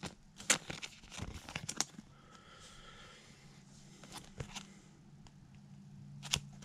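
Trading cards being handled and shuffled: a few sharp flicks and slides of card against card in the first couple of seconds, then quieter handling, with one more sharp click near the end. A faint steady low hum sits underneath.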